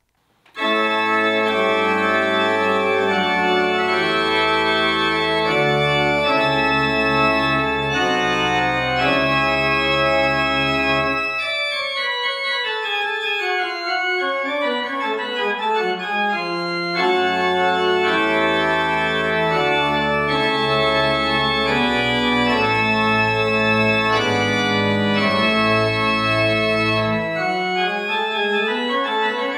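Church organ starting about half a second in with full sustained chords over a deep pedal bass. Around the middle the bass drops out and a run of notes falls in pitch before the full chords return; near the end the bass stops again and a run rises.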